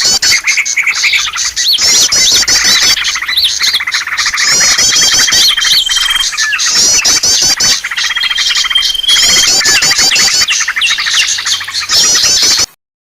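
Bird-lure recording of many small birds chirping and twittering all at once: fast, dense repeated chirps, quick sweeping notes and short thin whistles, looped in a busy chorus meant to draw wild birds in. It cuts off suddenly near the end.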